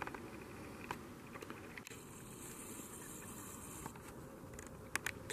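Faint steady hiss with a few scattered sharp clicks: footsteps on a polished stone floor, with two quick clicks near the end.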